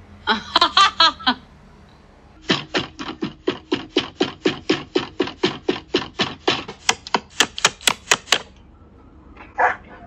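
A woman's brief laugh, then a rapid, steady run of knuckle knocks on a wooden front door, about four knocks a second for some six seconds, the last ones sharper.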